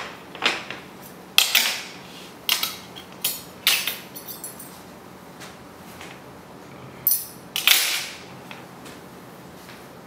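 A plate set down on a table, then a knife and fork clinking and scraping against the plate in a run of sharp strokes, with a last loud pair about three-quarters of the way through.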